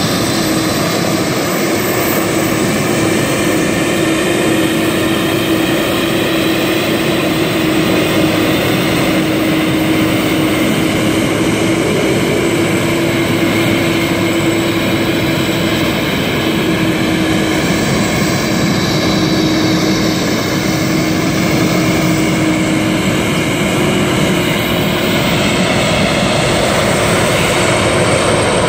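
The four jet engines of a Boeing 747-400 air tanker running at taxi power as the airliner taxis past: a steady jet noise with high whining tones. It grows slightly louder near the end.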